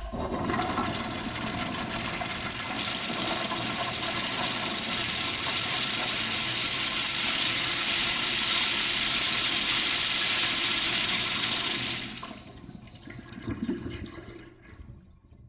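A toilet flushing: water rushes steadily from a sudden start for about twelve seconds, then drops off sharply into a short gurgle and trickle that fades away.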